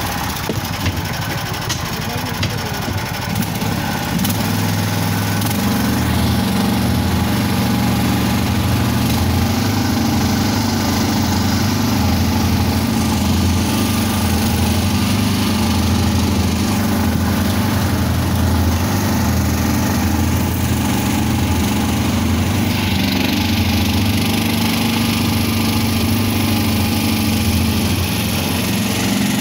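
Small engine of a homemade all-terrain vehicle running under load as it drives through swamp water. The engine note swells about four seconds in and then holds steady.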